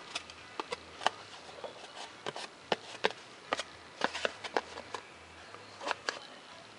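Scattered small clicks and crackles from a cut piece of paper-faced foam board being handled, taped across a scored line and bent along the score.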